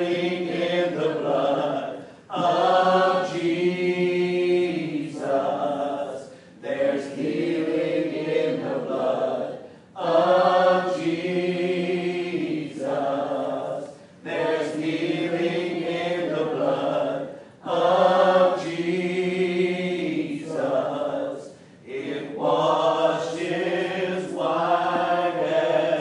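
Worship leader and congregation singing a slow gospel chorus together, in long drawn-out phrases of a few seconds each with short breaks for breath between them.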